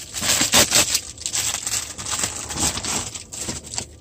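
Packaging crinkling and rustling as a phone-case package is opened by hand: a dense, irregular run of crackles that thins out near the end.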